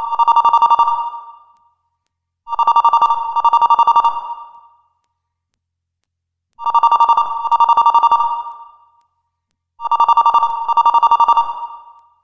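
Old-style telephone bell ringtone: a rapid trill on two close tones, ringing in double rings ('ring-ring') with silent pauses between, four times.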